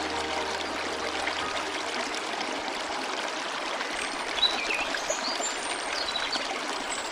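Running water of a stream, a steady even rushing and trickling, with the last held notes of soft music fading out in the first second or so. A few faint high chirps come about four to five seconds in.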